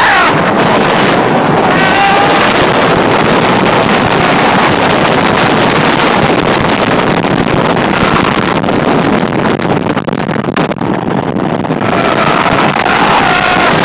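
Loud wind rushing over the microphone on the Formula Rossa launched roller coaster at speed, with riders yelling near the start and again near the end.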